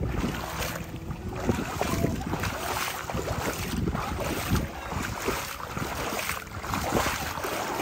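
Water sloshing and splashing as a person wades thigh-deep through shallow floodwater, a surge with each stride, while towing a small boat. Wind buffets the microphone.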